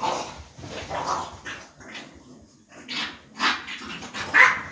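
Bulldog puppy barking during play: about five short, rough barks, the last one the loudest.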